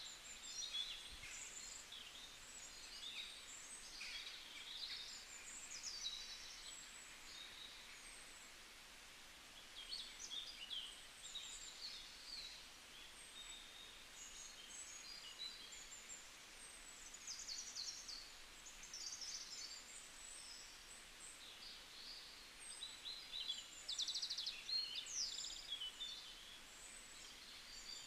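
Small birds chirping and trilling faintly, in short scattered phrases of high notes.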